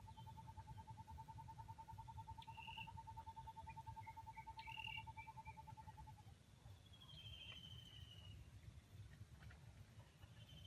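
Faint forest ambience: a long, even trill at one pitch that stops about six seconds in, with short high bird chirps and, later, thin high trills.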